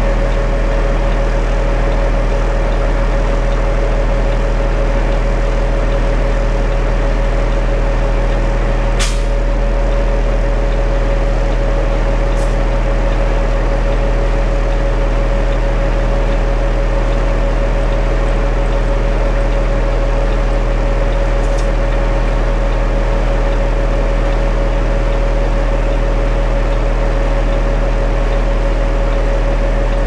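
Concrete mixer truck running steadily while it discharges concrete down its chute, a constant whine held over the engine. Three brief sharp clicks stand out: about nine seconds in, a few seconds later, and past the two-thirds mark.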